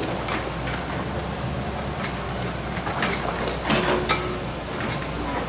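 Hyundai excavator's diesel engine running steadily, with irregular clanks and scrapes from the machine at work, the busiest stretch a little past halfway.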